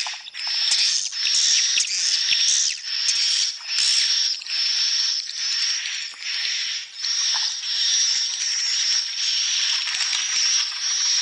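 Swiftlets calling: rasping, high-pitched chirring chirps repeated in quick pulses, roughly one or two a second, over a steady high whistle.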